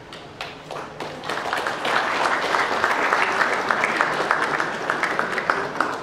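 Audience applauding: a few scattered claps that build about a second in into steady, dense applause, easing slightly near the end.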